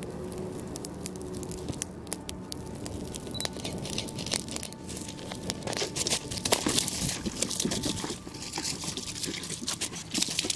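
A small firework burning with dense crackling and a fizzing hiss that grows louder about four seconds in and fades near the end.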